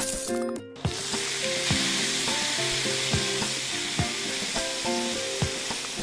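Skewered beef-and-scallion rolls sizzling on a hot plate, the sizzle starting just under a second in after a brief rattle, with light background music.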